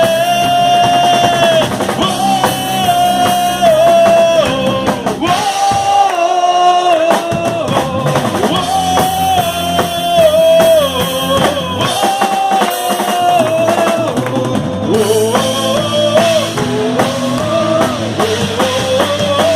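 Live rock worship band playing, with drum kit, bass and guitar, through a stretch without sung lyrics. A lead melody of long held, sliding notes rides over the top, and the low end drops out briefly about six seconds in.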